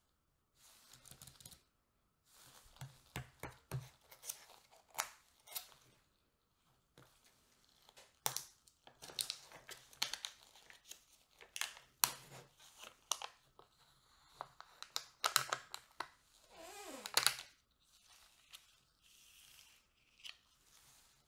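A foil lid is peeled off a plastic yogurt cup by gloved hands, crinkling and crackling in short bursts. There is a longer, louder peeling stretch about two-thirds of the way through.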